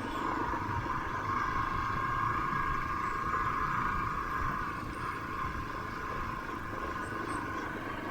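A vehicle running, a steady hum with a constant pitch that eases off a little about five seconds in, over road noise.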